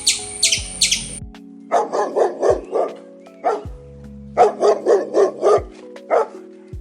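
A dog barking in two quick runs of about five barks each, then once more near the end, over background music. A high, rapid chirping stops about a second in, before the barks begin.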